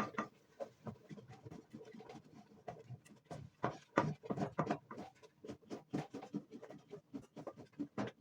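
A rolling pin stirring and working a flour-and-water dough in a cooking pot: irregular scraping and soft knocks, a few a second.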